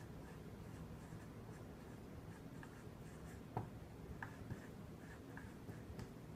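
Dry-erase marker writing on a whiteboard: faint strokes of the felt tip with a few light taps as the pen meets the board, the sharpest about three and a half seconds in.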